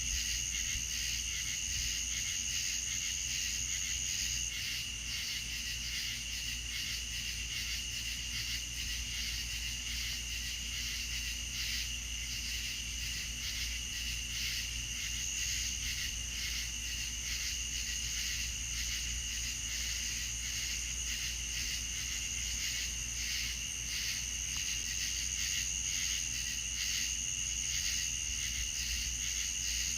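Night insect chorus of crickets chirping steadily: a constant high-pitched trill with rapid, even pulsing and a second, lower trill beneath it, over a faint low hum.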